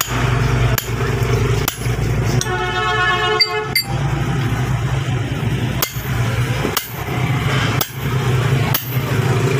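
Hammer blows on steel at the anvil while forging an axe, roughly one strike a second. There is a break in the striking about a third of the way in, where a buzzing pitched tone sounds for about a second. A steady low hum runs underneath.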